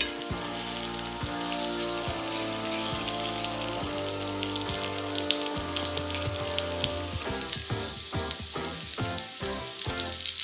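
Pumpkin slices sizzling in oil in a frying pan, with a steady hiss and fine crackles, over gentle background music.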